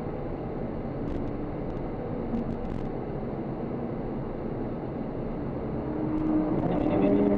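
Audi sports car's engine and road noise heard from inside the cabin, pulling under throttle as the car accelerates. Near the end the engine note rises and gets louder.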